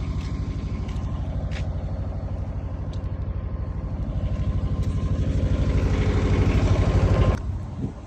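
An engine running steadily with an even, rapid pulsing beat. It grows a little louder, then cuts off suddenly about seven seconds in.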